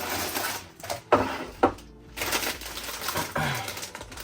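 Wig packaging being handled: irregular rustling and crinkling, with two sharp clicks about a second and a half second apart.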